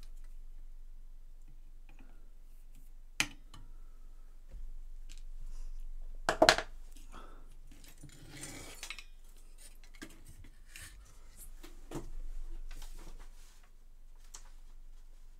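Workbench handling noises: scattered sharp clicks and clinks of a hand tool and a circuit board with metal heatsinks, the loudest a clatter about six seconds in, then rustling and a knock as the board is lifted, turned and set down.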